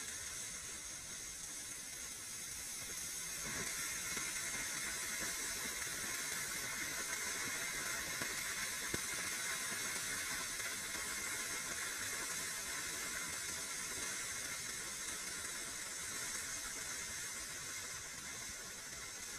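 Rocket motor firing on a static thrust-test stand: a steady hissing rush of exhaust that holds for the whole burn.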